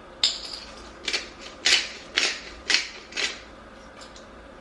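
Pepper grinder being twisted over a bowl, giving about six short gritty rasps roughly half a second apart.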